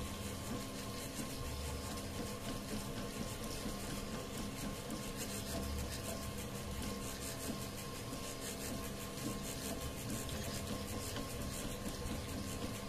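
Home-built 3D printer running a print: its stepper motors give a steady whine at a few fixed pitches over the constant hiss of its cooling fans, with faint regular ticking.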